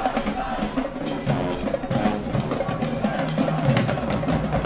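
High school marching band playing, brass over the drumline, with a steady beat of drum strokes.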